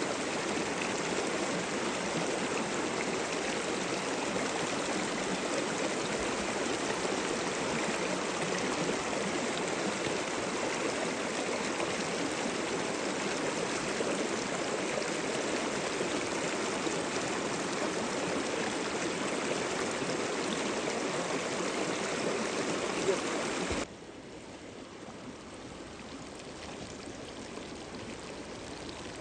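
Steady rushing of a flowing river. About three-quarters of the way through it drops suddenly to a much quieter level.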